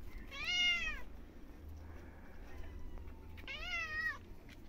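Domestic cat meowing twice, two long drawn-out meows about three seconds apart, the first louder. A hungry cat begging for food while it waits to be fed.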